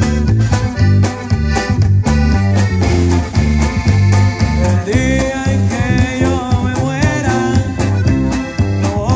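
Live band playing: a button accordion carries the melody over electric bass, electric guitar and a drum kit, with a steady, pulsing bass line underneath.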